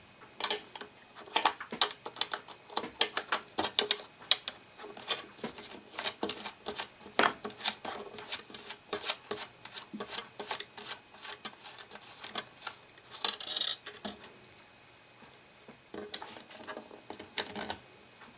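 Irregular small metallic clicks and taps of a thin open-end wrench working a 5/16 nut loose, thick at first and sparser later, with one short metallic ring about thirteen seconds in.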